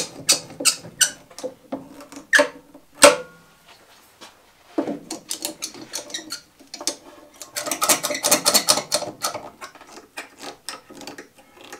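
Metal bar clamps being fitted and tightened to fix a log onto a wooden bandsaw sled: a string of clicks, knocks and rattles, with one sharp knock about three seconds in and a dense spell of fast clicking about two-thirds of the way through.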